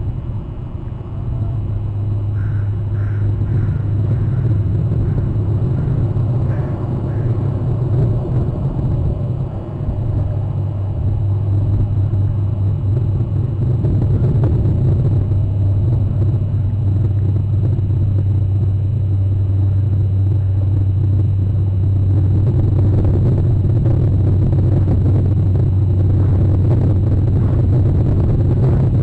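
A steady low rumble, its level holding even and rising slightly after the first few seconds.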